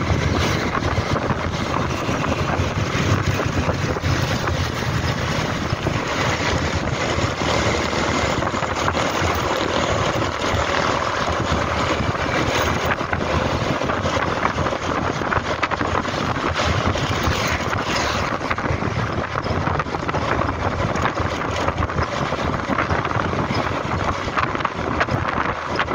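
Wind rushing over the microphone and the running of a motor scooter's engine and tyres during a ride at road speed, a steady unbroken noise.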